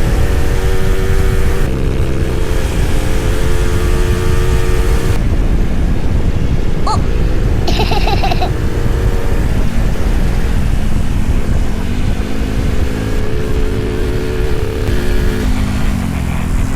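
Two-stroke single-cylinder motorcycle engine of a Suzuki Satria 120 running under way on the road, its pitch shifting several times with throttle and gear changes, over steady wind and road noise. A couple of short high tones sound about seven to eight seconds in.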